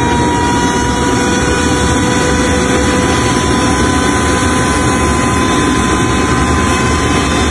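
Homemade gas-fuelled Mark 3 jet engine running on a test stand: a loud, steady rush with a thin whine in it that creeps slightly higher in pitch.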